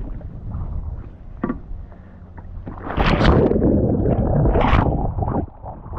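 Kayak rolling back upright: a burst of water splashing and pouring off the boat and paddler for about two and a half seconds from around three seconds in, over a low rumble of wind on the microphone.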